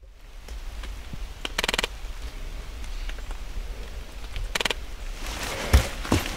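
Outdoor handheld field recording: scattered light ticks and two short bursts of rustling, with a couple of dull thumps near the end, from handling or movement close to the microphone.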